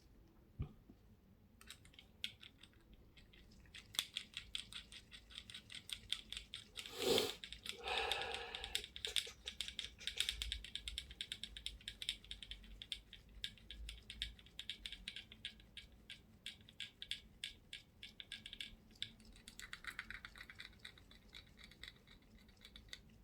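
Rapid light clicking and rattling of small metal bicycle hub parts being worked by hand, with a louder knock about seven seconds in.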